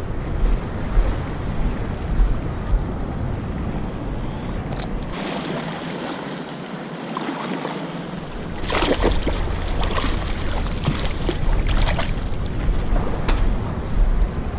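Wind buffeting the microphone in a steady low rumble over a hiss of small waves lapping at the shore. The rumble drops away for a few seconds around the middle. After that come scattered clicks and rustles of handling.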